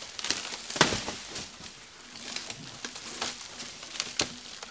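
A large taped cardboard box being pulled and torn apart by hand: cardboard scraping and crinkling with irregular sharp rips and knocks, the loudest about a second in.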